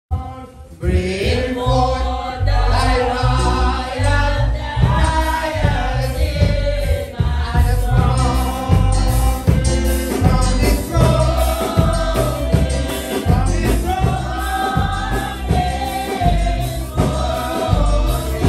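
Gospel music: a group singing over a steady, pulsing bass beat, starting about a second in.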